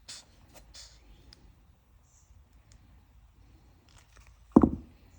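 Faint clicks and rustles of small metal brake-caliper parts being handled while the slide pins are greased, then one short dull thump about four and a half seconds in.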